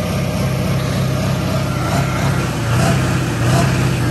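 Engine of a lifted pickup truck running steadily, a low, even drone.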